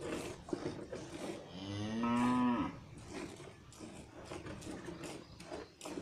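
A cow moos once, a single call of about a second, roughly two seconds in; it is the loudest sound. Under it runs the repeated soft hiss and splash of milk squirting into a steel pail during hand-milking.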